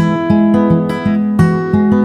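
Acoustic guitar music: plucked notes and chords ringing one after another at a steady pace.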